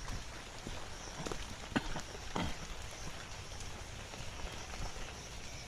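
Heavy rain falling, a steady hiss with scattered louder drops hitting nearby, the loudest two coming around two seconds in.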